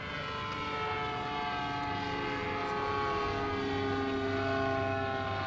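A radio-controlled model airplane's internal-combustion engine running steadily in flight. Its propeller drone falls slowly in pitch.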